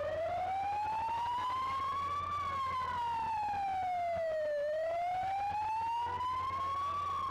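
Emergency vehicle siren wailing, its pitch rising, falling and rising again in slow sweeps of a few seconds each.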